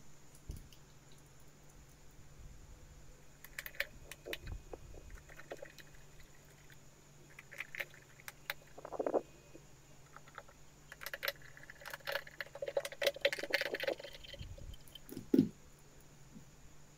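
Small clicks, taps and rattles of a fetal doppler's plastic casing and parts being handled and fitted back together. The sounds come in scattered groups, thicker from about 11 to 14 seconds in, with one sharper knock a little after that.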